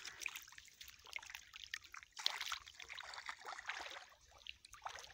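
Shallow water splashing and trickling in irregular bursts as a person wades through it.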